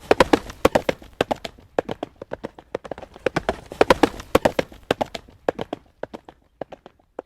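Horse's hooves trotting on a hard road surface in a quick clip-clop, growing louder twice and fading toward the end.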